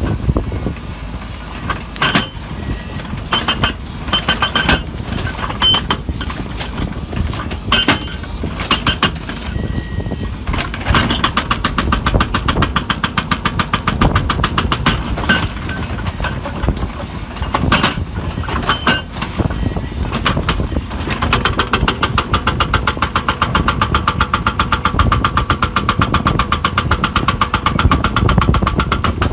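Hydraulic rock breaker on a Hidromek 140 tracked excavator hammering rock, over the excavator's running diesel engine. It starts with scattered sharp knocks, then settles into rapid, steady hammering from about a third of the way in, with one short pause.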